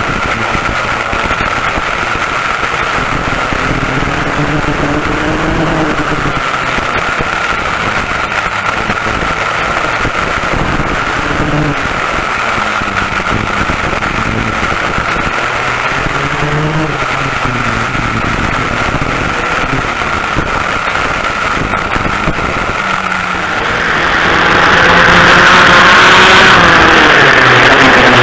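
Onboard sound of a vintage twin rear-engine racing kart at speed: its engines run hard, rising and falling in pitch as the driver gets on and off the throttle through the corners, with a steady rush of air over the microphone. Near the end the sound jumps louder and harsher.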